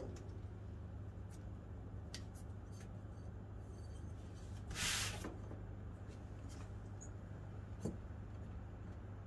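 Quiet handling noise of a motorcycle tyre being worked off its rim with tyre levers: a few light clicks, a short scraping rustle about five seconds in and a small knock near the end, over a steady low hum.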